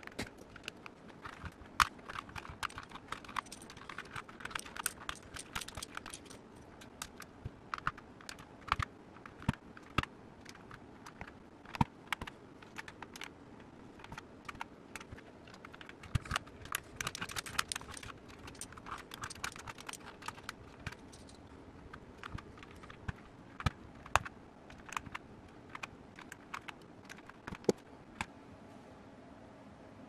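Round plastic typewriter-style keycaps being pressed onto and pulled off the red switches of a mechanical keyboard by hand: irregular sharp plastic clicks and clacks, some in quick runs, others single and louder.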